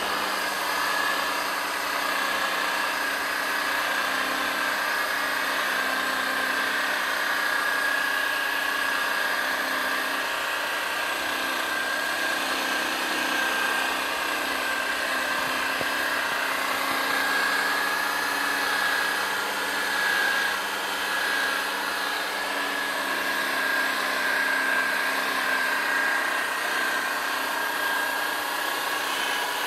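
Corded electric rotary polisher running steadily with a foam pad pressed against a yellowed plastic headlight lens, buffing off the oxidised top layer. A constant motor whine.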